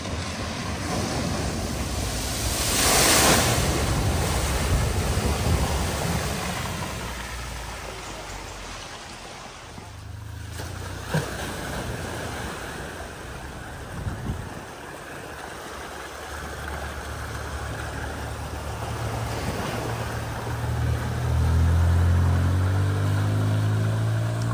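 Cars driving through a flooded ford: tyres pushing through the water with splashing and a steady rush of water, with a loud surge of spray about three seconds in. A car engine hums low and grows louder near the end as a car wades through.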